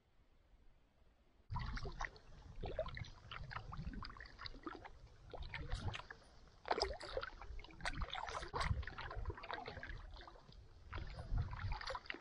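Canoe on the water: a paddle splashing and dripping, with irregular small knocks against the hull, starting abruptly about a second and a half in.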